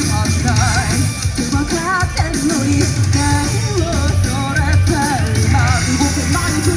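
Live rock band playing loudly, with a singer's wavering, vibrato-laden vocal line over heavy bass, drums and guitar. It is picked up by a phone's microphone at the show.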